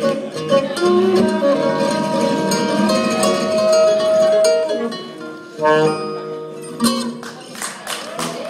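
A gypsy-jazz trio of alto saxophone and two acoustic guitars plays the close of a tune. The saxophone holds a long note over the guitars' chords, then the band strikes two closing chords about six and seven seconds in.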